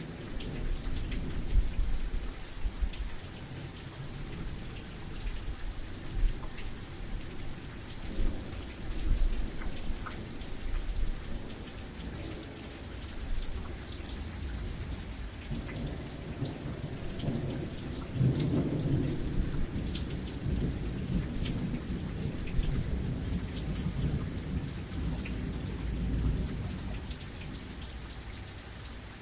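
Steady rain falling, with thunder rolling low beneath it; the rumble swells about halfway through and fades near the end.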